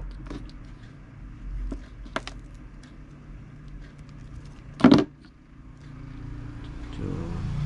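Small clicks and rustles of thin wires and hand pliers being handled, with one sharp snap near five seconds in as wire-stripping pliers cut or strip a wire's insulation. A steady low hum runs underneath.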